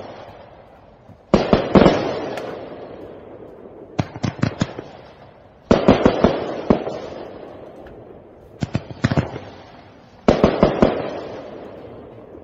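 New Year's Eve fireworks bursting: five clusters of sharp cracks, each trailing off in a long echo, about every two seconds.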